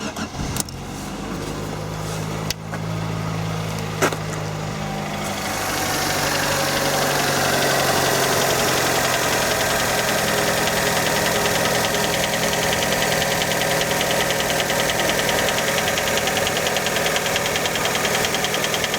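Fiat Panda engine started cold and idling with a rapid, even knock that grows louder about five seconds in; the owner asks what is knocking, and many take it for piston skirt slap.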